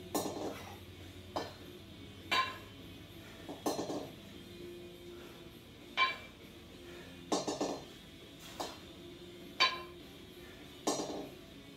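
A pair of 8 kg steel competition kettlebells clinking and clanking against each other through a set of double half snatches. A sharp ringing clink about every three and a half seconds alternates with a short rattling clank.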